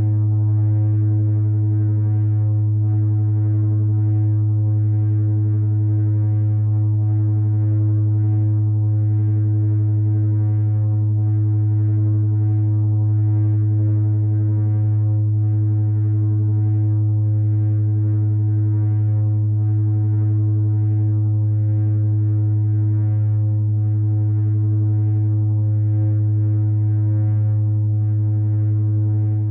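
No-input mixer feedback: a steady, loud, low droning tone with a stack of overtones above it, holding one pitch without change.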